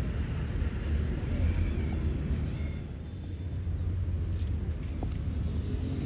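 Steady low rumble of road traffic.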